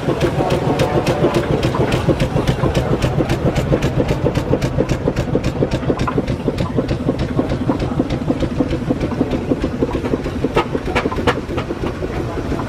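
Burrell steam traction engine chuffing as it drives slowly past, its exhaust beats coming evenly at about four a second over a steady low running hum, easing off near the end.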